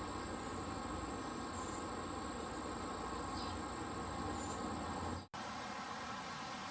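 Outdoor garden ambience: high, thin insect chirps repeating about four times a second over a low steady background rumble. The sound drops out for an instant about five seconds in, then the high insect sound carries on as one continuous drone.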